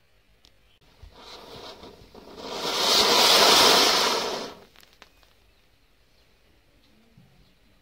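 Small Diwali firework spraying sparks with a loud hiss. It fizzes faintly about a second in, swells to full strength for about two seconds, then cuts off abruptly.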